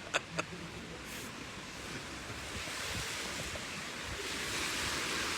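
Steady outdoor wind hiss with no distinct events, growing a little louder about three seconds in.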